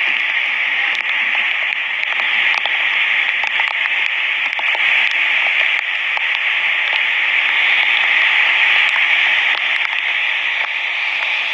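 A swollen river in flood rushing over boulders: a steady, loud rush of water with no deep rumble.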